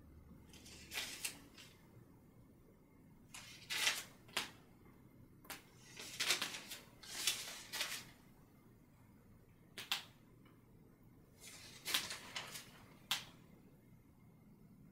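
Bristle paintbrush working oil paint in a series of brief scratchy strokes, coming in small groups of two or three.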